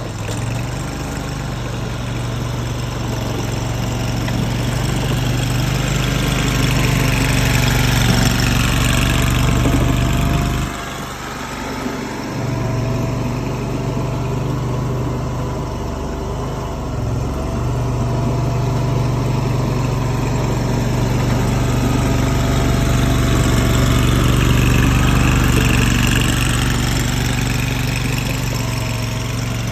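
Tracked mini skid steer's engine running steadily while working, with a brief drop in level a little over a third of the way through.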